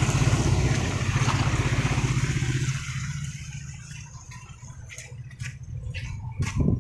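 Motor vehicle engine running with a low pulsing hum over a steady hiss of wind and rain. It fades away about three seconds in, leaving a quieter hiss with a few sharp clicks.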